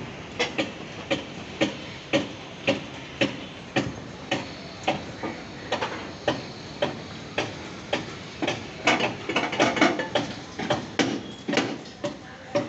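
Sharp knocks repeating evenly, about two a second, with a quicker flurry about three-quarters of the way through.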